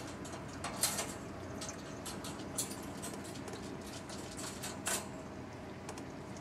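A handful of light clicks and rustles over steady room noise, from a tabby cat shifting about in its wire pen and bed.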